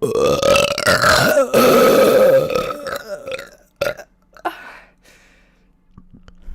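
A woman burping loudly: two long, drawn-out burps back to back, about three seconds in all, with the second the louder. Two short sounds follow about a second later.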